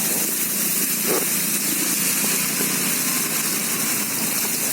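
A vehicle driving through flood water: its engine running steadily under an even rush and splash of water around the wheels.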